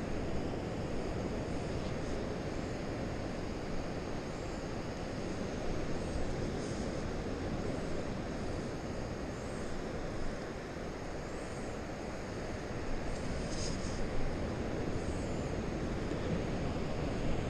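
Steady wind and ocean surf noise, with a few faint short high chirps scattered through it.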